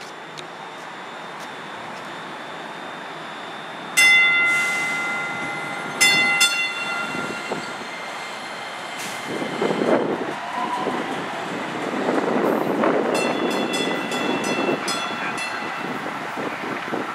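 DART light rail train sounding its horn: a loud blast that fades over about two seconds, then a short second blast. The train then rumbles along the platform, and near the end its bell rings rapidly, about four strikes a second.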